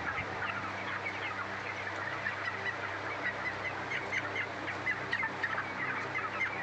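A flock of broiler chicks about three weeks old peeping continuously, many short falling chirps overlapping, over the steady low hum of an electric pedestal fan.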